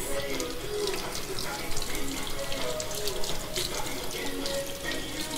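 Kitchen tap running into a sink, a steady splashing hiss as produce is rinsed under it, with faint background music.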